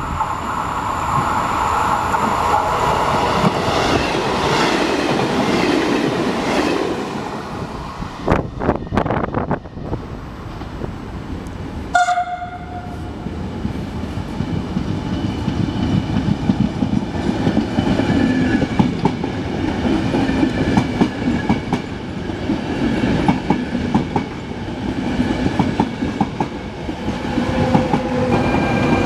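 Trenitalia train running along the track with a steady rumble, its wheels clicking over rail joints partway through. A short horn blast sounds about twelve seconds in.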